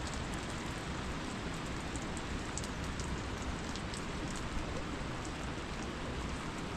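Steady rain falling, with scattered faint drop ticks.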